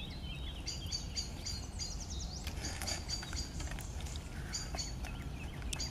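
Small birds chirping: runs of short, high, repeated notes over a steady low outdoor rumble.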